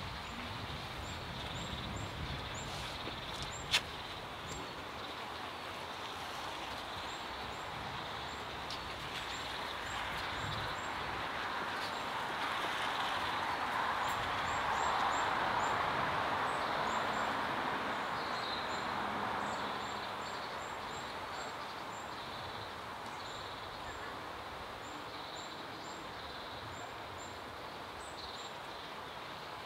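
Outdoor garden ambience: a steady noise that swells to its loudest about halfway through and then fades, under a small bird's short, high chirps repeating throughout. A single sharp click sounds about four seconds in.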